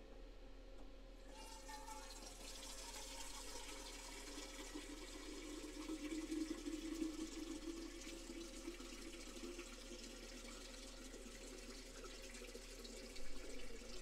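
Water pouring from the spigot of a plastic water jug into a stainless steel canister: a steady stream that starts about a second in and keeps running.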